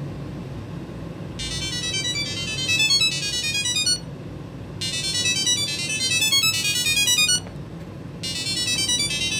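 Samsung Galaxy SmartTag 1 ringing: its small speaker plays a high electronic ringtone melody, very loud, in three repeating phrases with short breaks between them.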